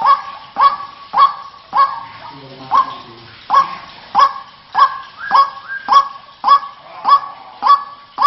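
White-breasted waterhen (ruak-ruak) calling: a loud, sharp call repeated about every 0.6 s, with a short break around two seconds in. It is a recording of the call of the kind played as a lure to attract waterhens in rice paddies.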